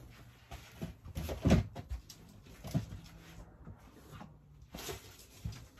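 A few soft knocks and rustles of handling and moving about, the loudest about one and a half seconds in.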